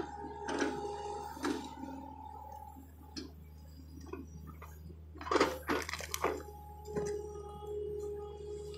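John Deere excavator running with a steady low hum and a steady higher tone, under irregular clanks and wet knocks as it works in mud, the loudest cluster about five to six seconds in.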